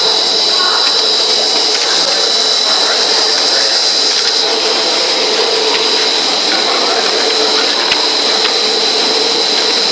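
Snack pellet production line machinery running: a loud, even mechanical noise with a constant high whine and a few faint clicks.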